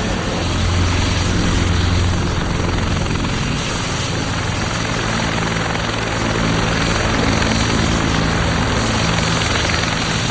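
Helicopter running close by, with a steady rotor beat and a high steady whine.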